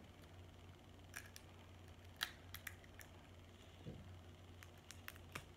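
Crab leg shells cracking and snapping as they are broken open by hand: about eight short, sharp clicks scattered unevenly over a faint low hum.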